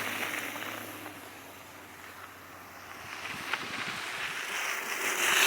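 Cars passing on a wet, slushy street: the tyre hiss of one vehicle fades away over the first second or two with its engine hum, and after a quieter stretch the hiss of the next car swells up near the end.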